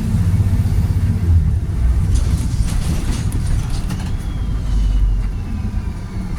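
Volvo B7RLE bus with Voith automatic gearbox running under way: a steady low diesel rumble with some rattles midway, and a thin high whine that falls in pitch over the last couple of seconds.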